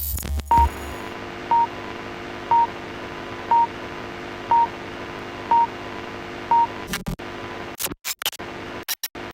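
Seven short, high electronic beeps about one a second over a steady hiss and hum, like a countdown. After about seven seconds the sound breaks up into stuttering, crackling glitches.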